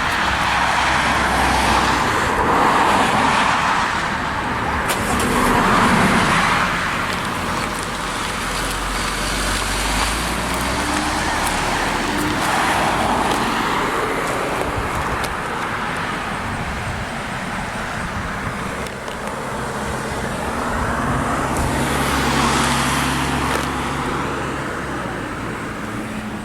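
Road traffic: several cars passing one after another, their tyre and engine noise swelling and fading about four times over a steady low hum.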